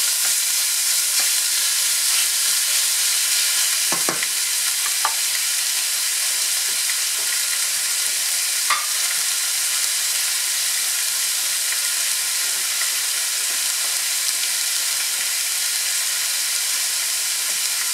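Raw cubed chicken breast searing in hot olive oil with onion and garlic in a stainless steel sauté pan, a steady sizzle. A few sharp clicks sound in the first half.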